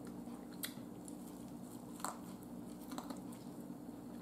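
Quiet biting and chewing of corn on the cob, with three short sharp mouth clicks about half a second, two and three seconds in, over a steady low hum.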